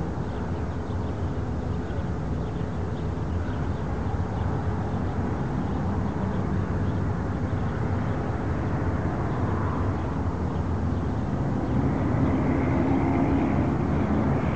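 Diesel locomotive engine running steadily as an Amtrak P42DC pulls slowly into the station, the hum growing louder about twelve seconds in.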